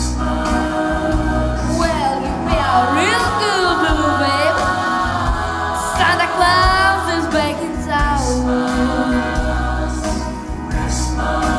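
Instrumental break of a bluesy rock-and-roll Christmas song on a backing track, with a steady beat. A lead part slides and wavers in pitch twice in the middle of the break.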